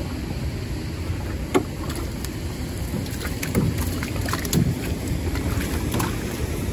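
Cast net being hauled out of the river into an aluminium boat: water splashing and dripping from the mesh in scattered small splashes, more of them in the second half, over a steady low rush of wind and flowing water.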